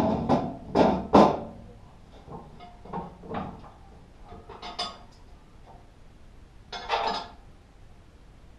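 Metal clanks and knocks from parts being handled on a flail mower under assembly: four loud ones in the first second and a half, quieter scattered ones up to about five seconds, and one more about seven seconds in.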